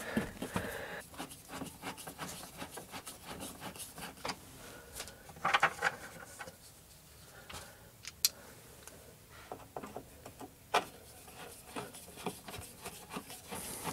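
Quiet handling noises: faint rubbing with a few scattered light knocks and clicks, one sharp click a little past halfway.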